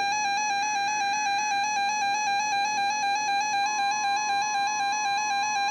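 Steady electronic alert tone at one pitch with a slight regular flutter, from a weather radio alert broadcast. About two-thirds of the way through, a fainter, higher steady tone joins it: the weather radio warning alarm tone beginning.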